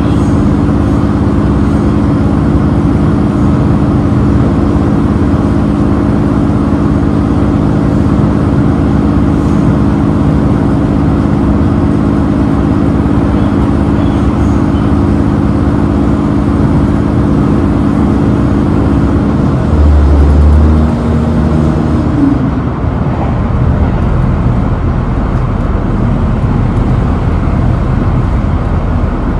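Inside a GV-E400 diesel-electric railcar under way: a steady diesel engine drone over wheel-on-rail running noise. About twenty seconds in there is a brief low thump, and the engine note then changes and fades, leaving mostly running noise.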